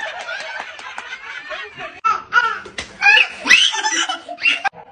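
Children's excited voices and laughter, with a few sharp clicks among them.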